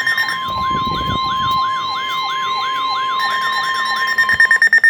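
Emergency Alert System alert signal from a broadcast: a steady high tone under a siren-like wail that sweeps down in pitch about three times a second, turning into fast pulsing beeps near the end.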